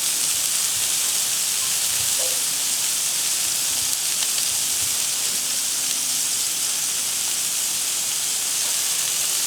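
Thinly sliced Roma tomatoes sizzling on a hot Blackstone flat-top griddle: a steady, even hiss.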